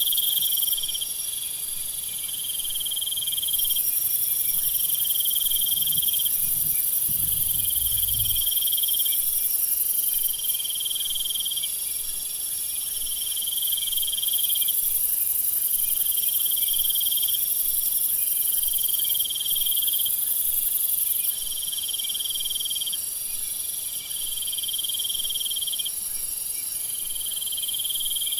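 Night-time jungle insect chorus: a steady, very high shrill buzz with a lower trill that switches on and off about every two seconds. A brief low rumble comes in about six to eight seconds in.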